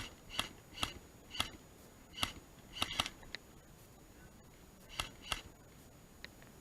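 Airsoft gun firing single shots: about nine sharp pops at an uneven pace, with a pause of about two seconds before the last two.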